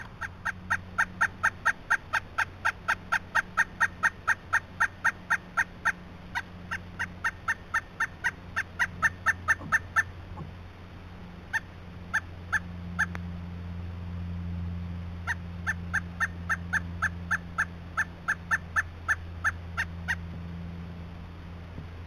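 Pileated woodpecker calling: long series of loud, evenly spaced notes at about four a second. One series runs for about ten seconds with a brief gap near six seconds, a few scattered notes follow, and a second series runs from about fifteen to twenty seconds in.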